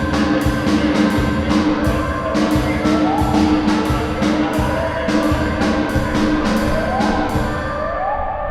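Experimental electronic music: a steady percussive pulse of about two to three hits a second over a sustained low drone, with short rising glides recurring every second or two.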